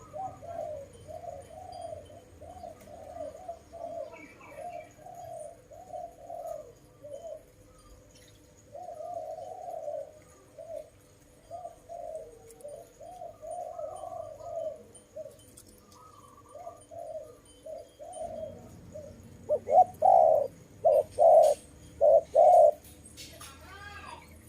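Doves cooing over and over in short repeated coos, with a louder, closer run of coos about twenty seconds in.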